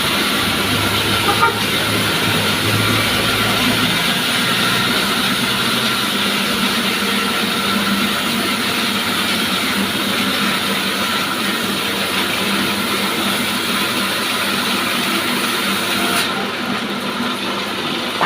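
Sawmill saw running steadily as it saws timber, a loud continuous mechanical noise; its high hiss falls away sharply about sixteen seconds in.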